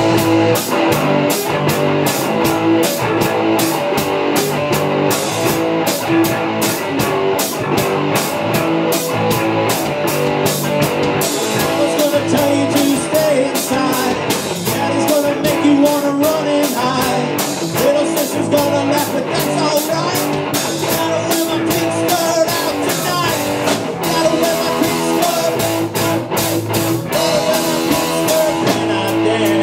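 Live rock band playing: electric guitars over a Tama drum kit keeping a steady beat.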